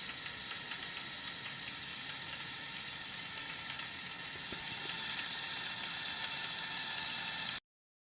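Two Lego Power Functions XL motors driving a Lego Technic model's plastic gear train: a steady, high-pitched mechanical whir. It gets a little louder about four seconds in and stops suddenly near the end.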